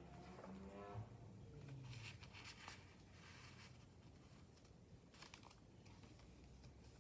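Faint rustling of a junk journal's paper pages being handled, a few soft brushes spaced a second or two apart.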